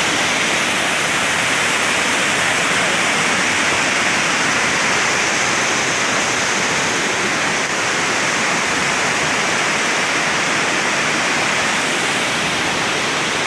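Steady rush of a waterfall, its water running in a thin sheet over rock.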